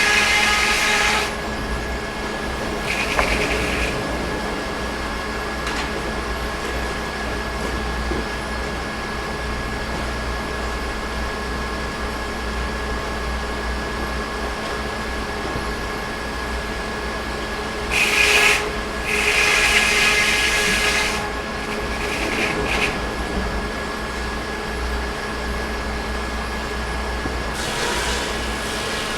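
Sawmill running steadily, with a short, higher hissing burst now and then, the loudest ones about two-thirds of the way through.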